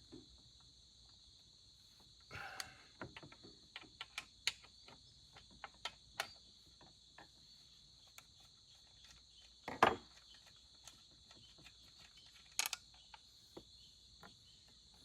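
Scattered light clicks and metallic knocks of hand work on a Husqvarna 395XP chainsaw's brake cover and captive bar nuts, with a louder clatter about ten seconds in and another near the end. Crickets trill steadily behind.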